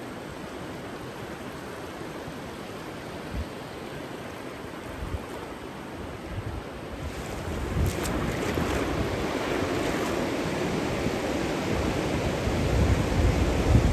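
Ocean surf washing onto a beach, with wind gusts thumping on the microphone now and then. The wash grows louder and brighter about halfway through.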